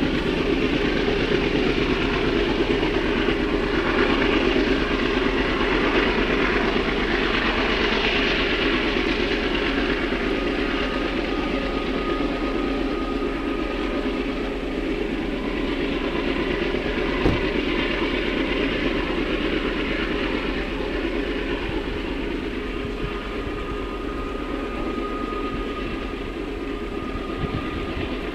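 CP GE AC4400CW diesel-electric locomotive with its 16-cylinder engine working hard as the rear-end pusher of a loaded coal train, running steadily at high throttle and slowly fading as it moves away up the grade. A thin high tone comes in about halfway and again near the end.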